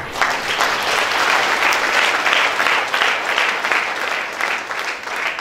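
An audience applauding, breaking out suddenly and holding steady.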